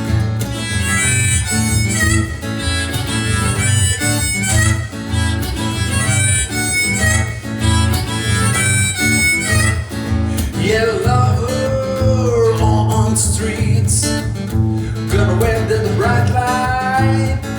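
Acoustic guitar strummed in a driving, steady rhythm. From about ten seconds in, a melodic line with bending, sliding notes plays over it.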